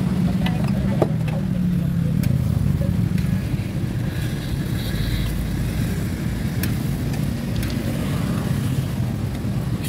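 Metal spatula scraping and clinking against a large steel wok as a big batch of fried rice is stir-fried, with sharp clanks scattered irregularly. Under it runs a steady low rumble.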